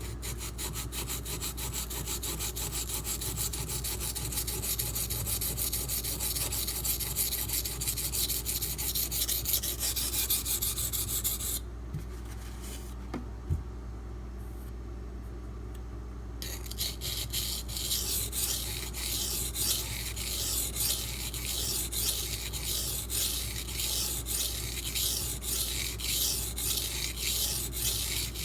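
Steel knife blade of D2 steel being stroked back and forth by hand on a sharpening benchstone: a rapid, even scraping rhythm that stops for about five seconds in the middle and then resumes.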